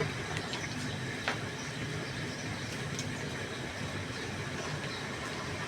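Steady low engine hum with a few faint clicks, about a second and three seconds in.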